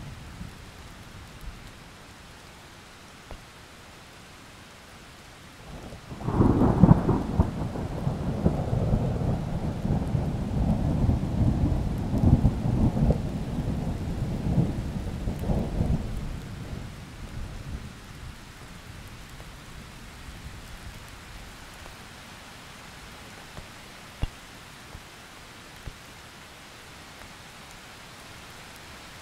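Steady rain with a long roll of thunder that breaks in about six seconds in, rumbles and crackles for around ten seconds, then fades back to the rain alone.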